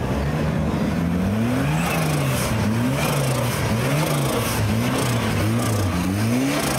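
Rock-crawling buggy's engine revved in short blips, its pitch rising and falling about seven times as it works its way up over boulders.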